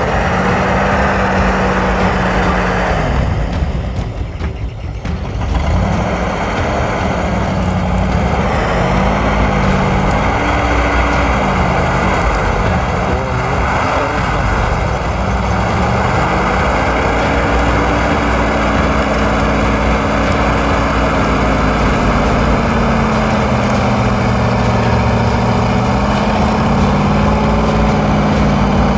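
GAZ Egerь off-road truck's diesel engine running, its revs rising and falling, over a dense noisy rumble. A steady high whine comes in about six seconds in and holds.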